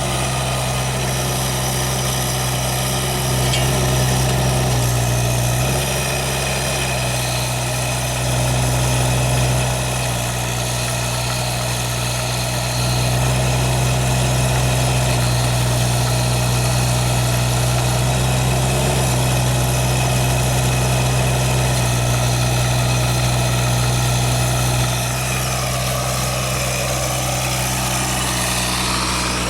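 Kubota U-17 mini excavator's diesel engine running steadily. It grows a little louder for a few seconds at a time: about three seconds in, around eight seconds in, and for a longer stretch from about thirteen to twenty-five seconds.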